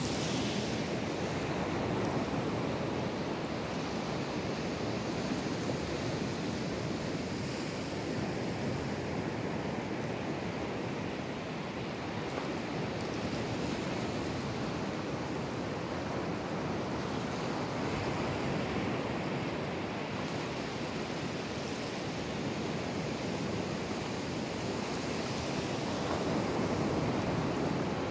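Atlantic Ocean surf breaking just offshore and washing over the shallow beach: a steady rushing wash that swells a little near the end.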